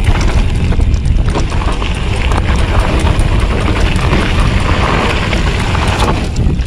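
Wind buffeting the GoPro Hero 7 Black's microphone as a Polygon Siskiu T8 mountain bike descends fast on a dirt and gravel trail. Tyre rumble runs beneath it, with many quick clicks and rattles from the bike.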